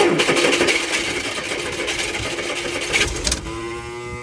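Vintage Baja boat's inboard engine cranked on starting fluid, catching and running rough and loud for about three seconds before it loses power. Its note then falls away as it dies.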